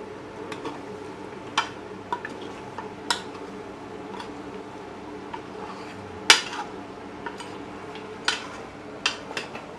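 Metal ladle stirring mutton in an open aluminium pressure cooker, scraping and clanking against the pot's sides a few times, the loudest clank about six seconds in, over a low steady sizzle of the meat being dry-fried in oil (bhuna).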